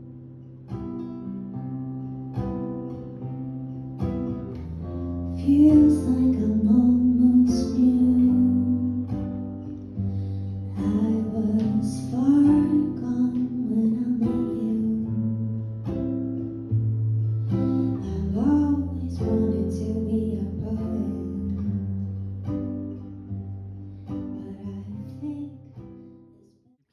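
Acoustic guitar playing with a singing voice that comes in about five seconds in, the music fading near the end.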